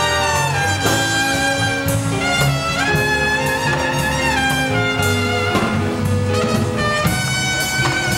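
A jazz big band playing a bossa nova ballad: the saxophones, trumpets and trombones hold long chords that change every second or two.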